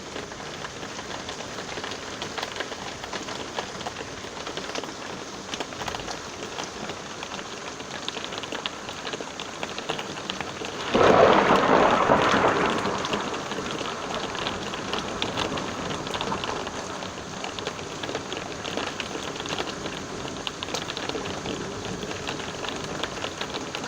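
Steady rain with many separate drops pattering. About halfway through, thunder breaks in suddenly, the loudest sound here, and rumbles away over two or three seconds before the rain alone carries on.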